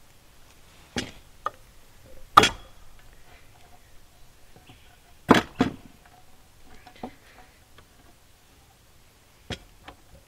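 Old-style cutting can opener punching into and working around the lid of a steel food can: a series of sharp metallic clicks and clunks at irregular intervals, the loudest about two and a half and five and a half seconds in.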